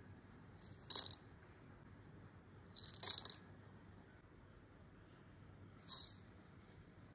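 Whole spices dropped into a stainless steel mixer-grinder jar, rattling and clinking against the metal bowl and blade. Three short clattering bursts, about a second in, at about three seconds and near six seconds; the middle one is the longest.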